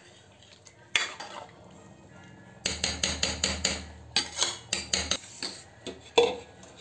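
Steel ladle clinking and scraping against a steel cooking pot while stirring thick saag: one knock about a second in, a quick run of clinks through the middle, and a few more near the end.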